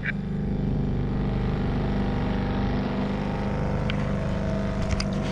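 Small boat's outboard motor running steadily at speed while the boat is under way.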